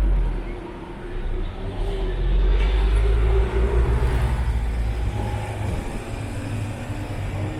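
Road vehicle driving in city traffic: a steady low rumble of engine and tyres that swells about two and a half seconds in, with a faint engine hum.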